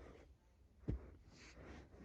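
A single short, low thump about a second in, over faint rustling handling noise.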